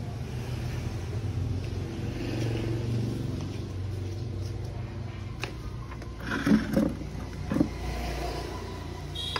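Steady low hum of a motor vehicle engine running, with a few short louder sounds about six to eight seconds in.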